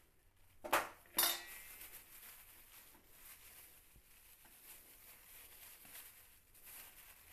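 A metal spoon clinks twice against a steel bowl while flour is scooped, the second strike ringing briefly; faint rustling follows.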